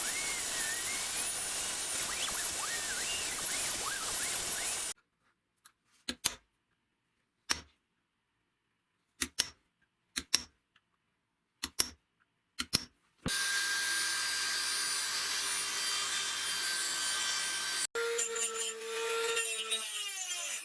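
A power tool running, then a stretch of separate sharp knocks and clicks with silence between them, then the tool running again, its pitch falling near the end as it winds down.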